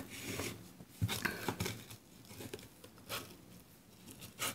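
A hand patting and shifting a mesh netting bag of wooden spoons on a wooden desk: faint, scattered rustles and small taps, with louder ones about a second in and near the end.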